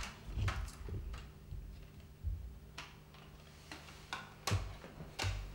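Plastic CD and DVD cases clicking and clacking as they are handled, picked up and set down, several separate sharp clicks spread through the few seconds over a faint steady low hum.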